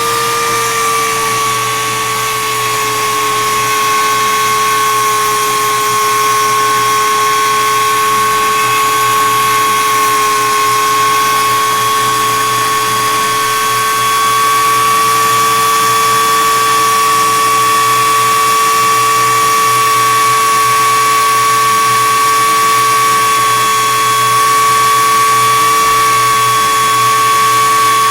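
A small high-speed electric rotary tool buffing the plastic AirPods Pro case with polishing compound. It runs with a steady whine, and the pitch dips slightly about a second in as it is loaded against the case.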